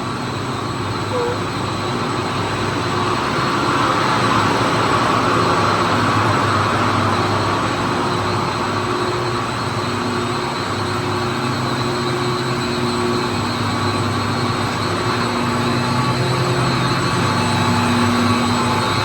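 Steady drone of a running commercial chiller, with several steady whining tones over a broad rushing noise. It grows a little louder a few seconds in.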